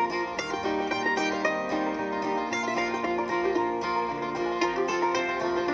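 Background music played on plucked string instruments, with a steady run of bright, busy notes.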